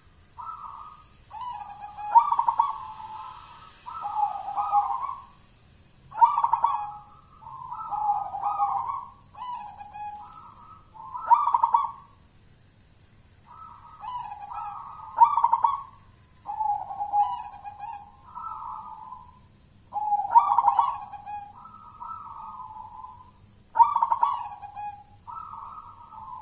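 Caged zebra dove (perkutut) singing the full-voiced local 'jolotundo' song: rolling phrases of several coos, one every one to two seconds, each opening with a loud accented note, with a short pause about halfway through.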